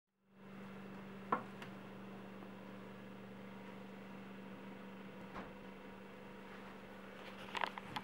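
The compressor of an old Soviet ZIL refrigerator running with a steady low hum. A sharp click comes about a second in, and a few light knocks come near the end.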